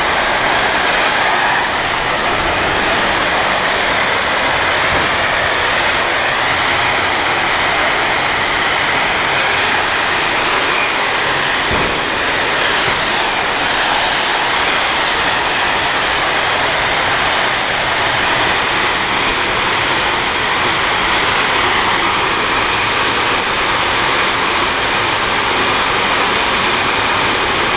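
Gas fire: a gas leak burning as a tall jet of flame, a loud steady roar that does not let up.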